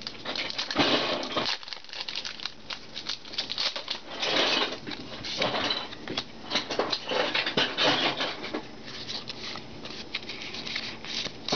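Foil Pokémon booster pack wrapper being torn open and crinkled in the hands, a run of uneven rustling bursts.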